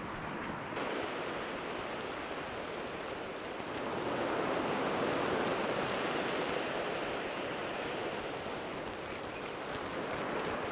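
Sea surf washing on a beach, a steady rush that swells about four seconds in and then eases off.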